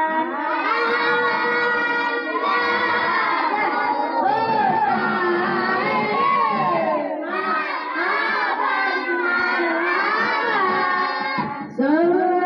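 A group of children and women singing an Islamic devotional song (shalawat) together, with long, wavering held notes. There is a short break near the end before a new phrase begins.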